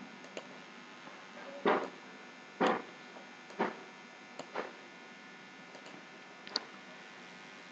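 Steady faint electrical hum of the recording, broken by five or six short soft sounds spread about a second apart, the first two the loudest.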